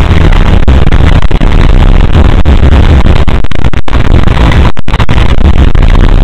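Heavily distorted, clipped audio at full loudness: a dense noisy wall with heavy bass and no clear tune, broken by short dropouts about four and five seconds in.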